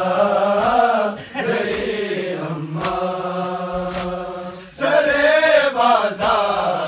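A men's mourning group chanting an Urdu noha, a Muharram lament, in long held lines that break off briefly twice. Now and then there are sharp slaps from hands striking chests in matam.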